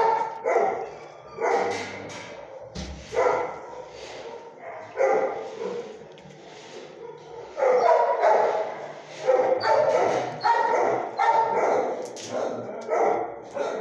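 Dog barking repeatedly in a shelter kennel, one short bark after another, coming about one to two a second and loudest in the second half.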